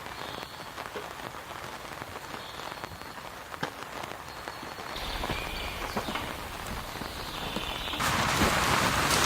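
Rain falling, with scattered drops tapping sharply. It grows heavier about five seconds in and heavier again near the end.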